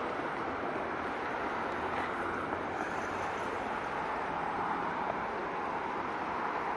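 Steady noise of road traffic passing along the street, swelling slightly in the middle.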